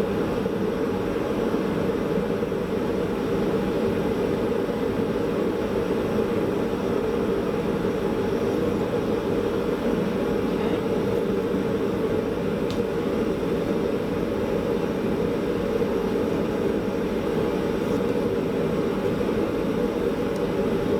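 Lit forge running with a steady, even rushing noise while it heats up to forging temperature.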